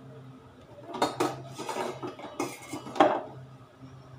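Stainless steel kitchenware clinking and clattering: a small metal bowl and utensils knocked about on the counter in a run of sharp clinks starting about a second in, the loudest knock near three seconds.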